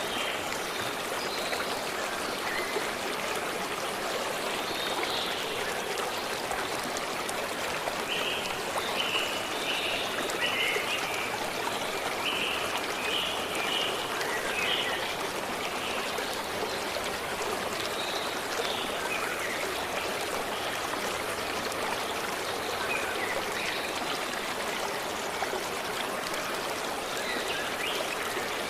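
Stream flowing steadily, with short high bird calls, a cluster of them near the middle.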